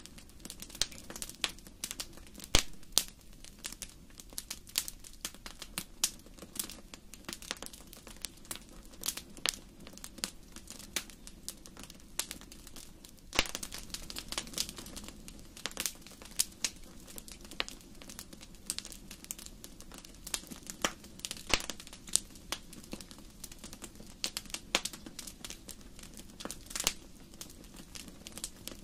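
Wood fire burning in a large fireplace: irregular sharp crackles and pops over a low, steady rumble of the flames.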